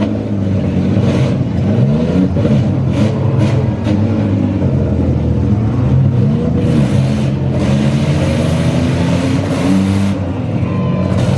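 Several minivan engines revving up and down in a demolition derby, with a number of sharp bangs scattered through.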